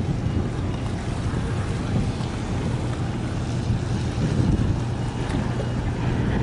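Wind buffeting the microphone over a steady low drone from the engine of a passing open-hatch cargo ship.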